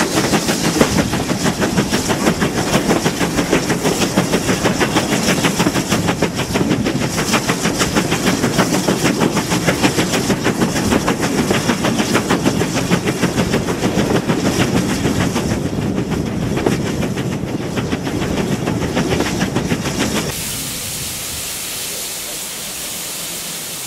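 GWR 5600 class 0-6-2 tank engine 5643 running, heard from an open carriage window right behind it: rapid, steady exhaust beats and wheel clatter over the rails. About 20 seconds in it cuts off suddenly to a steady, quieter hiss with the train standing.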